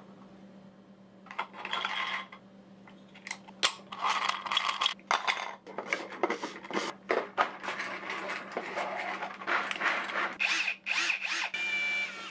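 3D-printed plastic parts being handled and fitted together by hand: irregular rubbing, scraping and clicks of plastic. A short high whine sounds near the end.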